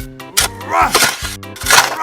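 Upbeat background music with a steady beat and regular drum hits.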